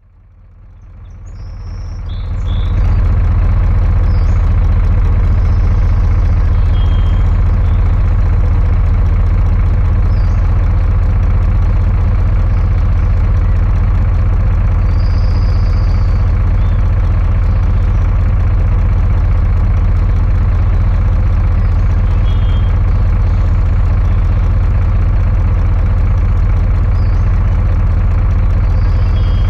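Heavy truck's diesel engine idling steadily with a deep, even low rumble. It swells in over the first couple of seconds.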